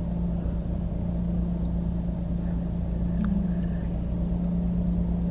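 Steady hum of a car heard from inside the cabin, the engine running with a constant low drone.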